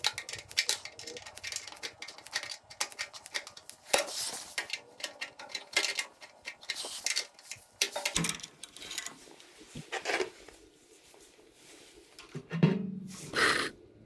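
Metallic clicks and clinks of hand tools and fittings being handled at a gas water heater's burner assembly and thermocouple line, with a louder clatter near the end.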